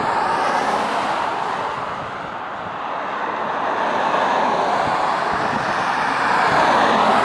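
Road traffic on a highway: cars passing at speed, their tyre and engine noise swelling and fading twice, once shortly after the start and again near the end.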